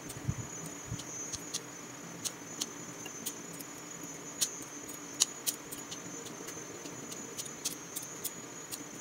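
Small, sharp snips and clicks at an irregular pace, about one or two a second, as soaked strands of rau tiến vua (dried celtuce stem) are cut short. A faint steady high-pitched whine runs behind them.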